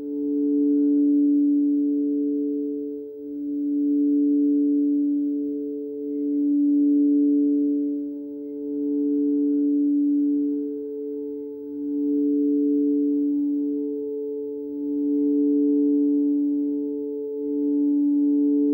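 Frosted quartz crystal singing bowls played with mallets: two steady ringing tones, one low and one higher, held together, with fainter overtones above. The sound swells and dips about every two to three seconds.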